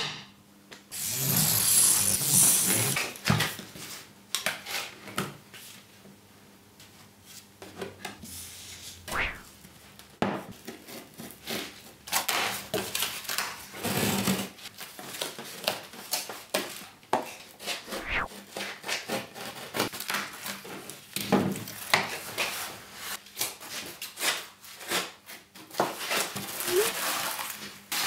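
Cardboard being cut with scissors and handled on a wooden workbench: irregular snips, scrapes and rustles, with a sharp knock at the start and a longer hissing scrape about a second in.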